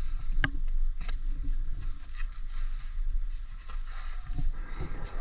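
Low rumbling noise on a body-worn microphone, with a handful of scattered soft knocks and rustles, typical of a player moving with his gear.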